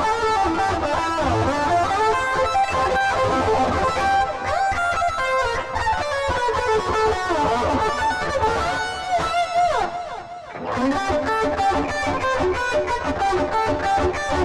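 Electric guitar playing a lead solo through the solo preset of a Boss ME-25 multi-effects pedal, with sustained notes and string bends. A long falling slide comes about nine seconds in, then a brief dip before the playing picks up again.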